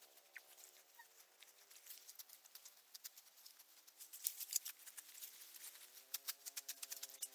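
Dry rustling and crackling, a rapid run of small clicks that grows denser about four seconds in, over a faint steady low drone.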